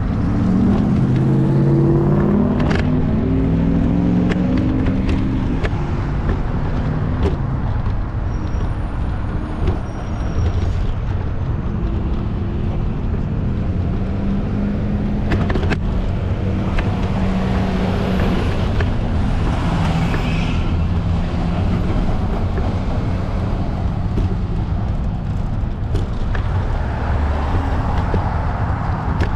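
Street traffic: motor vehicles passing over a steady low rumble, with one engine heard over the first few seconds and another through the middle.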